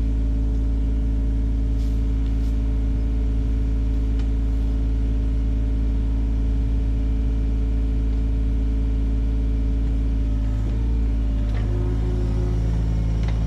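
John Deere 35G mini excavator's diesel engine running steadily at constant speed, with a few light knocks near the end.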